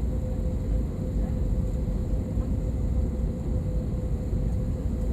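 Steady cabin noise inside an Airbus A320 airliner: an even low rumble of engines and airflow with a steady mid-pitched hum.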